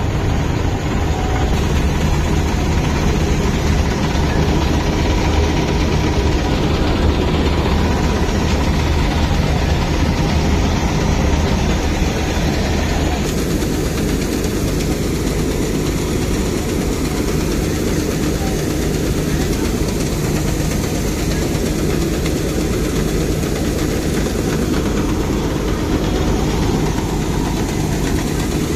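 Tractor and combine harvester diesel engines running steadily in the field. About halfway through, the sound changes to the combine's running engine and unloading auger as it pours harvested paddy into a trolley.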